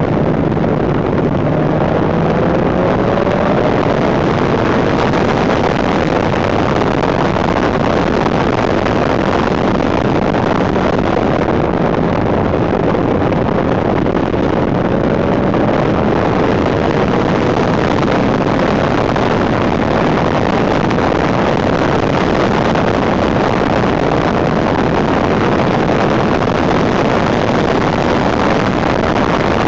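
Heavy wind noise buffeting the microphone of a handlebar-mounted camera on a moving 1991 Suzuki GSX 750 F Katana. The bike's inline-four engine is faint underneath and rises in pitch twice, near the start and about midway.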